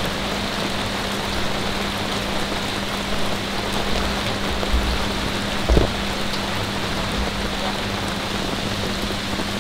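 Heavy rain falling steadily, a dense even hiss of rain, with a low steady hum underneath and one soft thump about six seconds in.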